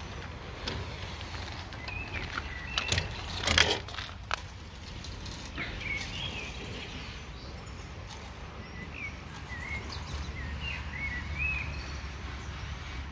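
Small birds chirping now and then, short rising-and-falling chirps, over a steady background hiss. A short burst of sharp clicks and rustling comes about three to four seconds in and is the loudest moment.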